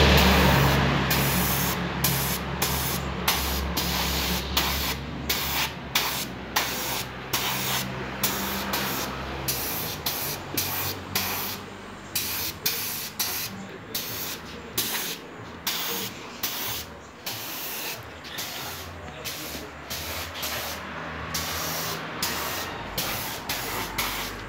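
Compressed-air gravity-feed spray gun hissing in short bursts, about two a second, as its trigger is pulled and released to spray finish onto carved wood. A low machine hum runs underneath through the first half.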